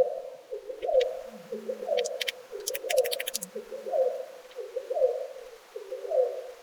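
A dove cooing over and over, one low phrase about every second, with a few short high chirps mixed in near the middle; the cooing stops abruptly at the end.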